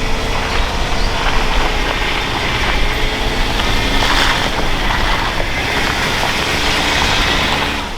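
A vehicle driving, with steady engine and road noise: a constant low rumble under a broad hiss, and no marked change in speed.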